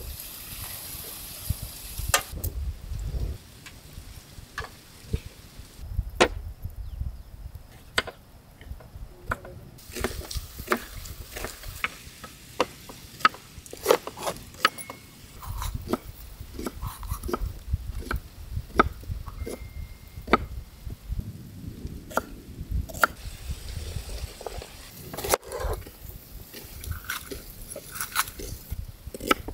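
Irregular sharp clicks and knocks, now sparse, now several a second, over a steady low rumble.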